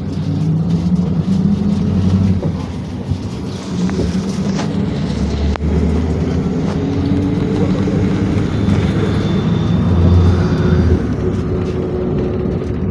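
PAZ Vector Next city bus under way, heard from a passenger's seat: steady engine drone and road rumble, the engine note shifting in pitch now and then. A few sharp rattling knocks come through about halfway in.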